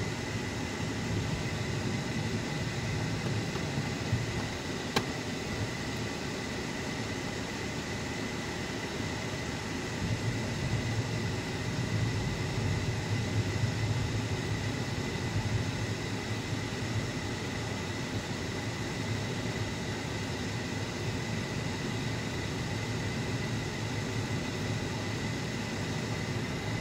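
Steady road and engine noise heard inside a moving car's cabin, a low rumble under a hiss, with a thin steady high whine. A single sharp click comes about five seconds in.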